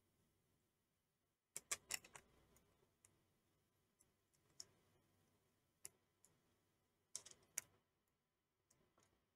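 Faint, sparse clicks and light metallic taps of small screws and the metal casing of a Bosch ME17.9.71 engine control unit being handled as the screws are set in by hand. There is a cluster of clicks about a second and a half in, single ticks around four and a half and six seconds, and another cluster just after seven seconds.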